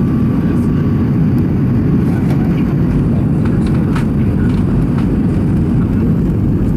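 Steady low rumble of engine and airflow noise inside the cabin of an Airbus A320 airliner, heard from a passenger seat. A faint higher tone fades out about a second in.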